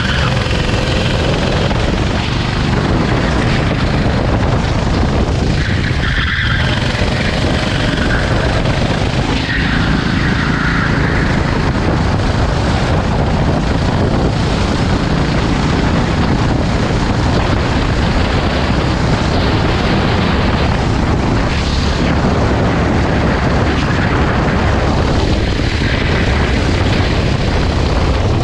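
Racing go-kart engine running hard on a wet track, under a steady, loud rushing noise, with a few brief higher-pitched patches here and there.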